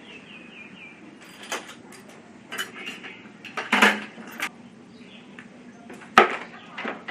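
Scattered metallic clinks and taps of hand tools against metal motorcycle parts during carburettor work, about five separate knocks with the loudest a little under four seconds in.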